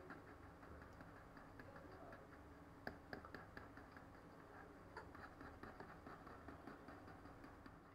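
Near silence: faint room tone with a few soft clicks, the clearest about three seconds and five seconds in.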